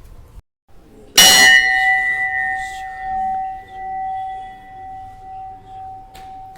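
Hindu temple bell struck once, its clear tone ringing on and slowly fading with a wavering, pulsing beat.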